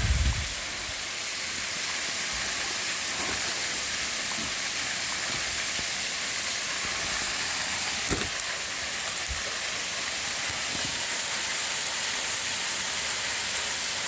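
Waterfall pouring and splashing, a steady hissing rush of falling water. A low thump right at the start and a brief click about eight seconds in break through it.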